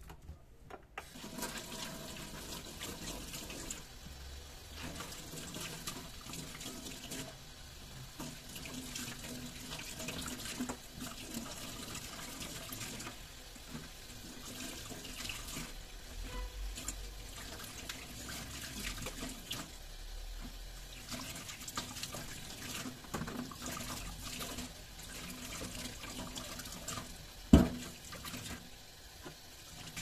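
Kitchen tap running into a stainless-steel sink as dried corn cobs are rinsed under the stream, with the water splashing off the cobs and hands. The water starts about a second in, and there is a single sharp knock near the end.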